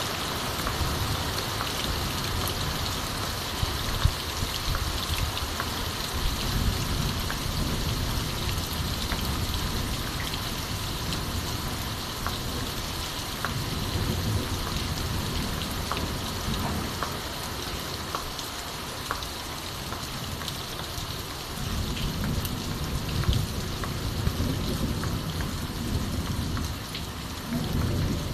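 Steady heavy rain falling on a clay-tiled roof and wet ground, with scattered drops ticking. Low rumbling swells up and fades several times, strongest near the end.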